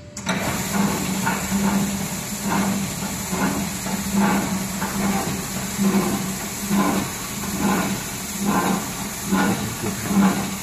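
HW-G3 three-head planetary floor grinder with its 3 hp electric motor, running on a tile floor: a steady hiss over a low hum that swells evenly a little more than once a second as the heads turn. It comes on suddenly right at the start.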